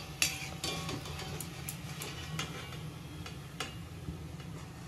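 Samosas deep-frying in hot oil as they are lifted out: scattered sharp crackles and light clicks of a metal utensil over a steady low hum.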